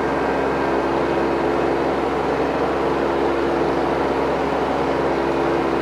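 Kioti CS20-series subcompact tractor's three-cylinder diesel engine running steadily with the throttle raised as the tractor drives through a tight turn.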